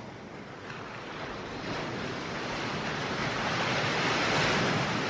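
Ocean surf: waves breaking with a rushing wash that swells to a peak about four seconds in, then begins to ease.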